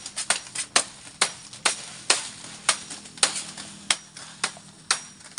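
Green forage grass being chopped by hand with sickles to make goat silage: a steady run of sharp chopping strikes, about two a second, as the blades cut through the stalks.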